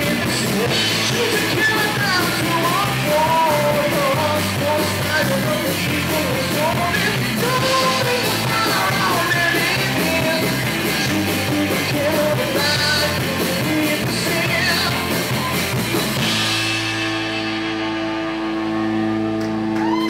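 Live rock band playing: a male singer with electric guitar, bass and drum kit. About sixteen seconds in the drums stop and a final held chord rings out as the song ends.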